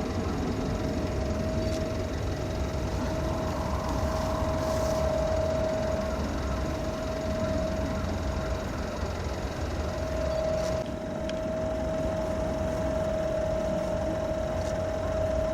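A steady mechanical drone: a low rumble with a constant whine held on one pitch, like an engine or machine running at a fixed speed.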